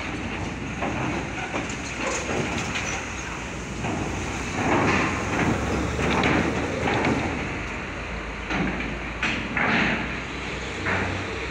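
Diesel cargo trucks drive off a ferry's bow ramp onto the steel-grated linkspan. The engines run under a steady rumble, and there are repeated metallic clanks as the wheels cross the ramp plates, loudest a few seconds in and again near the end.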